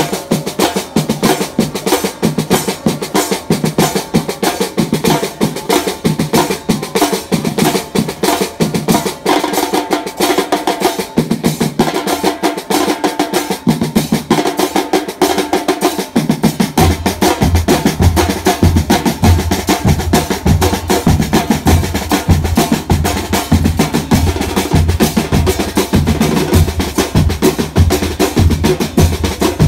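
A drum line of snare drums plays a fast, driving pattern with rolls. About halfway through, big bass drums join with a regular low beat.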